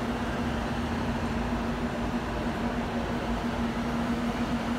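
Steady drone of an idling coach, a constant hum with an even low rumble beneath it.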